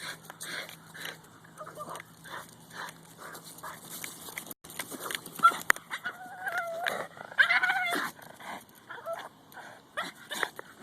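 Boston Terrier making silly monkey-like sounds instead of barking: a string of short yips and whines, with a few longer pitched calls about six to eight seconds in.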